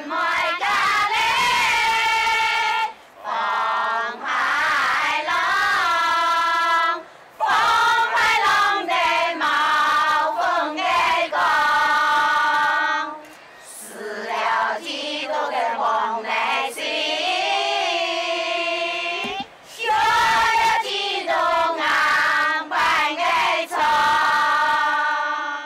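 A group of mostly women singing a Hakka mountain song (shan'ge) together in unison. The song comes in long phrases of held notes, with short breaths between them about every three to six seconds.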